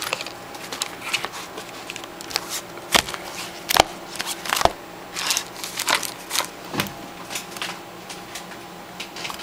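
Pokémon trading cards in plastic sleeves and a card binder being handled and rifled through on a table: scattered rustling with a few sharp clicks and taps, the loudest about three to five seconds in.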